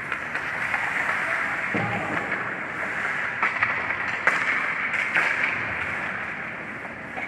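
Ice hockey skates scraping and carving on the ice, with a handful of sharp stick and puck clacks in the middle, the loudest just past four seconds in.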